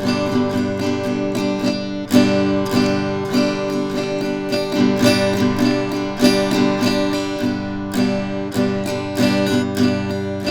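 Acoustic guitar music, strummed and picked with a steady rhythm.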